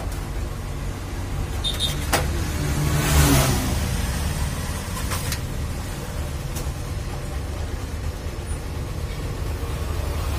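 Steady low rumble of road traffic, with one vehicle passing louder about three seconds in. A single sharp knock sounds just after two seconds.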